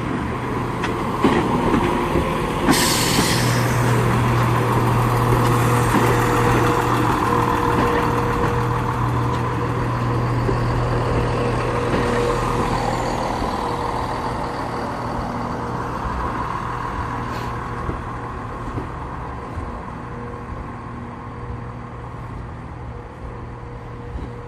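Class 170 Turbostar diesel multiple unit's engines running with a steady low hum. A short air hiss comes about three seconds in, and the sound slowly grows quieter over the second half.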